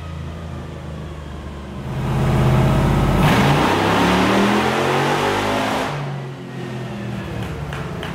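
Rebuilt 6.2-litre L92 V8 with an LSR cam and short dual exhaust making a full-throttle pull on a chassis dyno, driving big off-road tyres on the rollers. It runs steadily at first, gets much louder about two seconds in, and climbs steadily in pitch before dropping back to a lower hum about six seconds in.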